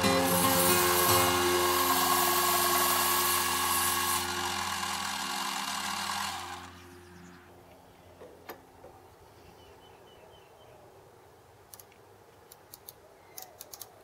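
Metal lathe running and cutting a cast pillow block, a steady mechanical hum with a hiss of cutting. About six and a half seconds in it stops and falls away, leaving a few light metallic clicks as the tool post and cross slide are handled.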